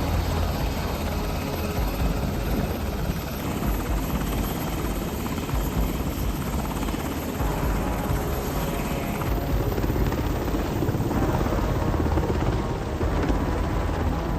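Steady, loud drone of aircraft engines, most likely a helicopter's rotor and turbine noise. The noise changes abruptly about nine seconds in and again about eleven seconds in.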